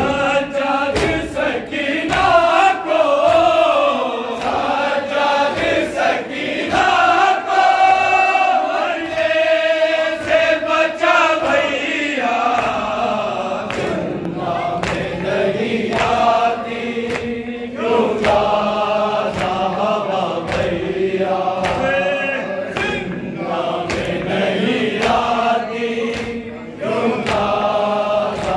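A group of men chanting a noha, a Shia lament, in unison, with a steady rhythm of open hands slapping chests (matam) keeping the beat.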